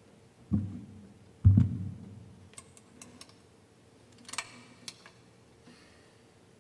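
Two dull thumps, the second the louder, then a few light clicks and a short rattling clatter: handling noise as a saxophone player gets set at a music stand. No notes are played yet.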